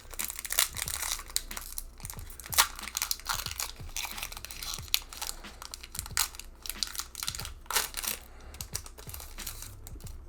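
Foil Pokémon booster pack wrapper being torn open and crinkled in the hands, a run of irregular crackles and rustles.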